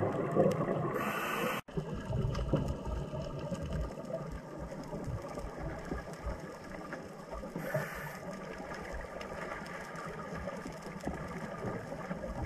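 Muffled underwater noise picked up on a scuba dive: an uneven low bubbling rumble, broken by a brief dropout just under two seconds in, with a short hiss about eight seconds in.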